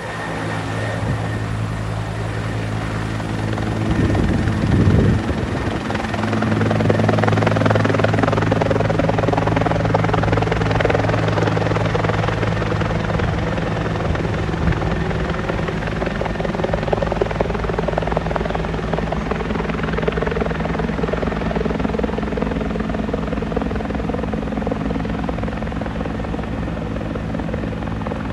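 Helicopter flying overhead: steady rotor and engine noise that grows louder about six seconds in and eases slightly near the end, with a brief rush of noise about four seconds in.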